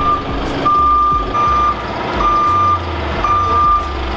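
Toyota forklift's reversing alarm beeping about once a second as it backs away with a heavy crate, over the low rumble of its engine.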